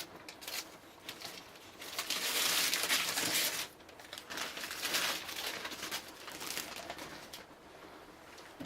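Styrofoam packing and plastic wrap being pulled off a PC case, rubbing, squeaking and crinkling in irregular bursts, loudest from about two to three and a half seconds in.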